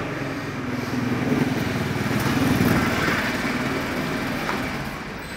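A small engine running close by. It grows louder toward the middle and fades near the end, like a vehicle going by.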